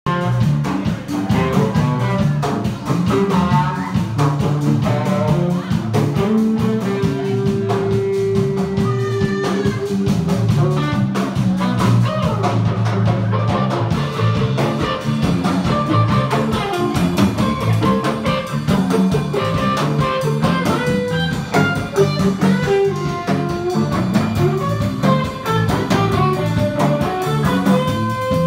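Live band playing: electric guitars over a drum kit, steady throughout.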